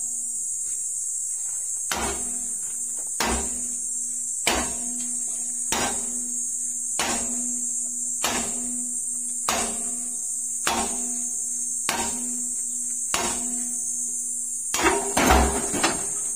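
Hammer striking a long steel bar against a concrete mixer's drum shaft to knock out a crushed bearing, about one blow every 1.2 seconds, each leaving a short metallic ring. A few quicker, louder knocks come near the end. A steady high insect drone runs underneath.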